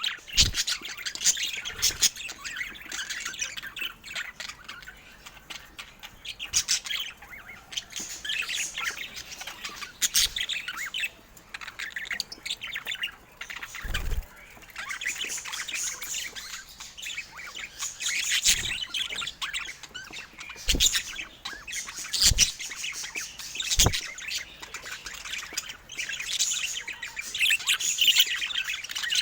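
Budgerigars chattering continuously, a dense mix of warbles, chirps and squawks, with a few dull knocks along the way.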